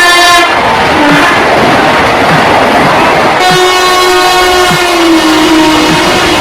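A train passing with its horn sounding: a long horn note that breaks off under a stretch of rushing noise, then sounds again about three and a half seconds in. Its pitch drops slightly about five seconds in.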